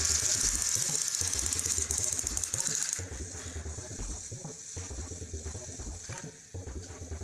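Battery-powered toy Gordon engines pushing against each other on plastic track: small motors buzzing and gears clicking and ratcheting as the wheels strain. The high buzzing drops away about three seconds in, leaving quieter, irregular gear clicks.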